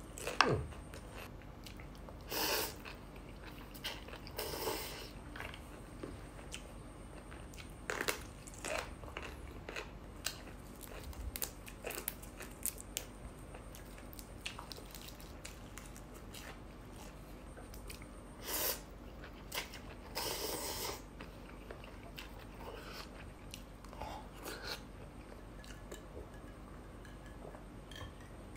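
A person eating close to the microphone: chewing and crunchy bites of food, including fresh green chilli, with a few short louder noisy bursts scattered through.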